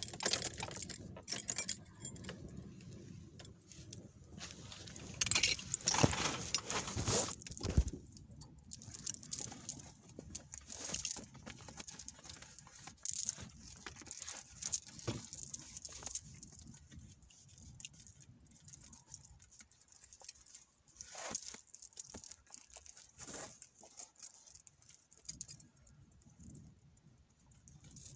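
Irregular rattling and clicking of small loose objects, like keys jangling. It is busiest and loudest between about five and eight seconds in, then comes as scattered clicks.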